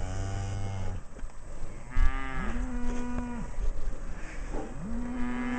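Cattle mooing: three long moos, the first lower in pitch than the other two.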